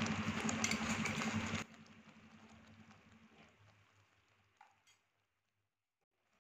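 Thickening milk simmering in a kadhai on a gas stove while a wooden spatula stirs it, with a steady low hum underneath. The sound cuts off sharply after under two seconds, leaving a faint remainder that fades out to silence.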